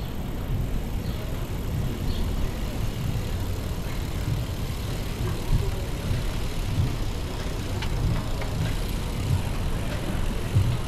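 Low, gusting wind rumble on the microphone of a camera riding on a moving bicycle, mixed with tyre and road noise, with a few faint clicks about two-thirds of the way through.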